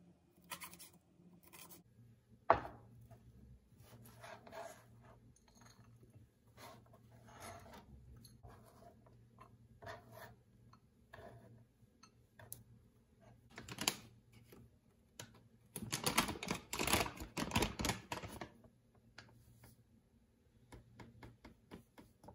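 Kitchen prep sounds: a knife slicing green chillies on a plastic cutting board, then scattered taps, knocks and scrapes of knife, bowl and chopped vegetables, with one sharp knock about two and a half seconds in. About sixteen seconds in comes a busier couple of seconds of scraping and rustling.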